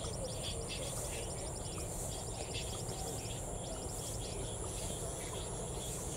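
Field crickets trilling, in short bursts of rapid pulses repeated every second or so, over a steady high-pitched insect drone and a low rumble.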